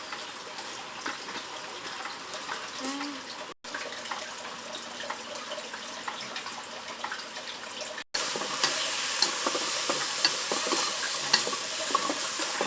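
Food sizzling in a pan with small clicks and scrapes of stirring, cut twice and louder after the second cut about eight seconds in.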